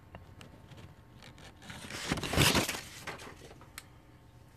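Handling noise from a phone being moved and set in place: a rubbing, scraping rush against the microphone that swells and fades over about a second, with a few small clicks.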